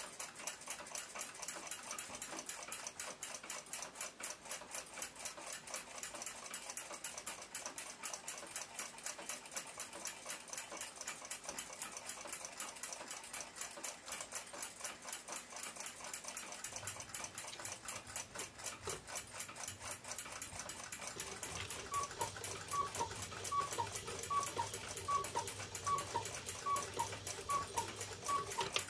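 Chelsea ship's bell clock movement running, its escapement ticking rapidly and evenly. Near the end, a louder, slower series of clicks comes in, about two a second.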